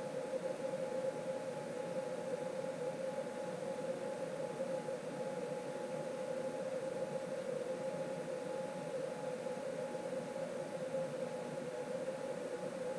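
Onefinity CNC machine humming with a steady, unchanging whine as it runs its slow touch-probe zeroing routine.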